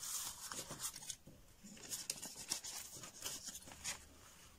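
Faint rustling and scraping of a hand moving over a sheet of paper, in short irregular strokes.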